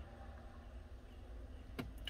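Quiet room tone with a steady low hum and faint hiss, broken by a single short click near the end.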